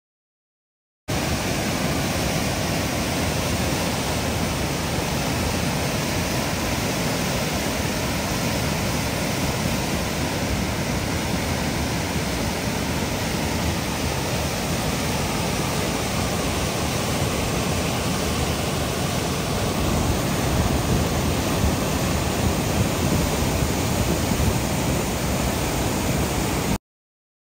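Steady, loud rushing noise with no pitch, even and unbroken, starting abruptly about a second in and cutting off abruptly near the end.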